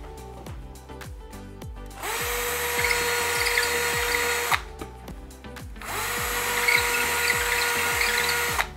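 Cordless drill with a masonry bit boring bracket holes into the plaster wall of a window recess: two bursts of about two and a half seconds each, the motor spinning up to a steady whine and stopping abruptly. Background music plays underneath.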